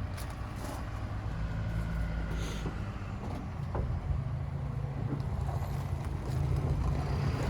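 Pickup truck engine running as the truck pulls forward away from the trailer hitch, a steady low hum that grows a little louder near the end.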